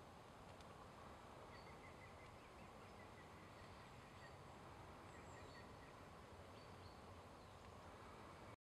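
Near silence: faint outdoor background hiss with faint, high bird chirps here and there. It cuts off suddenly near the end.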